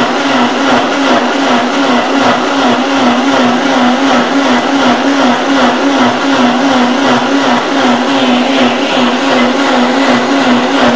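Vitamix high-power blender motor running at speed, puréeing eggplant, red chilies and onion with their cooking water into a smooth paste. A loud, steady whine that wavers slightly in pitch as the thick purée churns.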